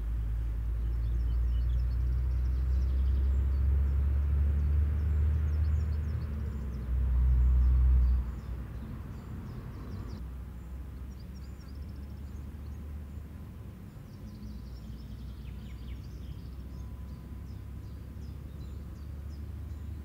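Outdoor ambience: a low rumble, strongest for the first eight seconds and dropping off suddenly at about eight seconds, with faint, short, high-pitched chirps throughout.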